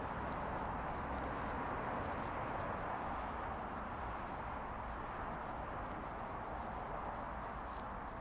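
Steady, even hiss of outdoor street ambience recorded while walking along a paved pavement, with no voices or music.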